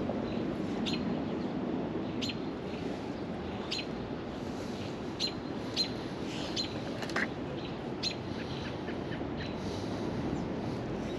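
Songbird chirping in short, sharp notes, one about every second or so, over a steady low rush.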